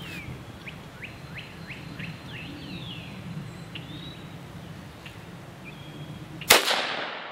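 A single .17 HMR shot from a single-shot 12-gauge shotgun fitted with a rifled .17 HMR adapter barrel: one sharp crack about six and a half seconds in that rings off in echo over about a second. Before the shot, small birds chirp with quick falling calls.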